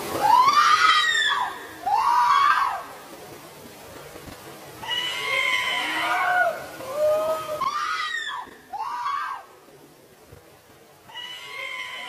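High-pitched screaming, several screams in a row, each rising and then falling in pitch, with short quiet gaps between them.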